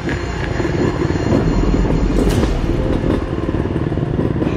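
Enduro dirt bike engines running at close range, a loud uneven rumble, with a sharp click about two seconds in.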